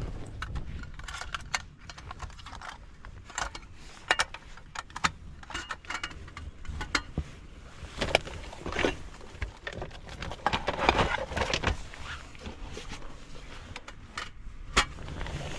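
Irregular small clicks, knocks and clinks of hard objects being handled, bunched more thickly about halfway through, over a low steady rumble.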